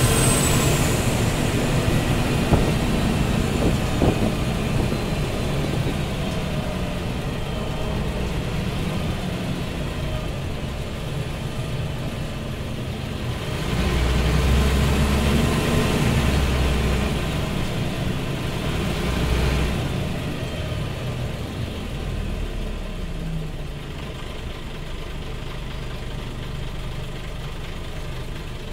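Loud 260 hp Scania DSC 911 diesel engine of an articulated Scania OmniCity city bus, heard from inside the rear of the bus while driving. The engine pulls harder and louder for about six seconds in the middle, then eases off and grows steadily quieter toward the end.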